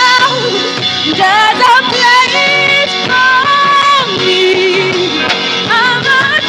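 Live gospel worship music: a voice singing a gliding, ornamented melody without clear words, over a band with drums.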